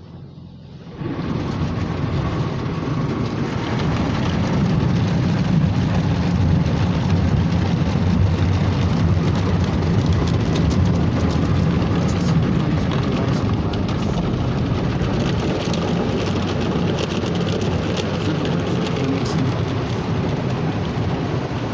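Ryko Softgloss MAXX automatic car wash machine starting a stage about a second in, then running steadily: a loud, even rush of water spray and machinery.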